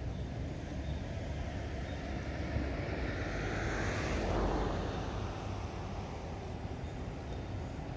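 A motor vehicle passing by over a steady low rumble, its sound swelling to a peak about halfway through and then fading away.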